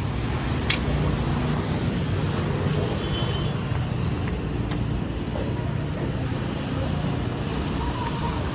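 Steady street traffic noise from passing road vehicles, with a sharp click a little under a second in.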